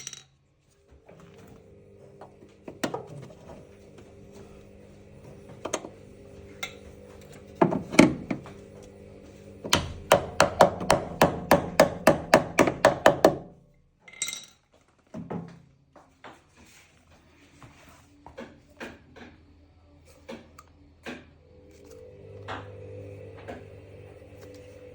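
Hammer knocks on a washing-machine shock absorber being repaired: scattered single blows, then a quick run of about a dozen strikes, roughly three a second, in the middle, over a faint steady hum.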